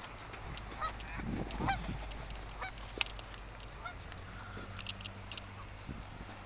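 Canada geese honking: several short, separate honks spread over the first four seconds, with a sharp click about three seconds in.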